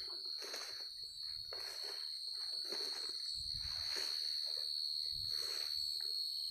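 A steady, high-pitched insect chorus drones without a break. Over it come rustling steps through grass and brush about once or twice a second.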